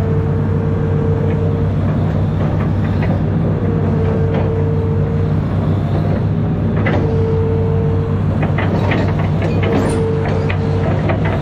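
Amphibious excavator's diesel engine running steadily under load, with a whine that comes and goes about every three seconds as the boom and bucket move. There are a few knocks and clanks in the second half.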